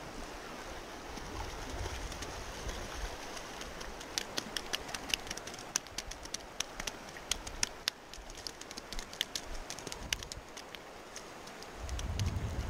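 Steady rush of river water and wind across the microphone. A run of quick, irregular sharp clicks sounds through the middle, and a low rumble swells near the end.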